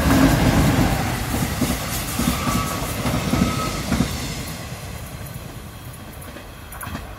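Korail Class 8200 electric locomotive and Mugunghwa-ho passenger coaches passing close by, wheels rumbling on the rails with a few sharp clicks. The noise is loudest at first and fades steadily as the train moves away.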